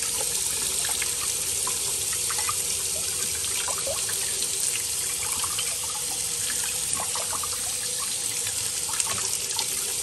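Kitchen faucet running in a steady stream onto a stainless dishwasher spray arm held under it, the water splashing off into the sink. The water is being run into the arm's jet holes to flush out the gunk that clogged them.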